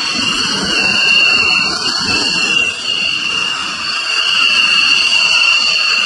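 Several F-16 fighter jets taxiing, their turbofan engines giving a loud, steady high-pitched whine over a rushing roar.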